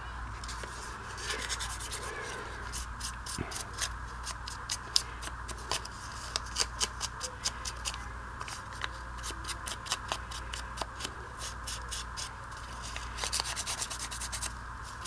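Foam ink blending tool scrubbed in quick, scratchy strokes against the torn edges of a book-page scrap, working distress ink in to make the paper look aged. The strokes come in runs of several a second, with short pauses between runs.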